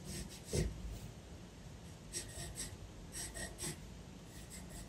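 Light scratching strokes of a pencil on paper as lines are traced softly: one stroke just over half a second in, then two quick runs of short strokes about two and three seconds in.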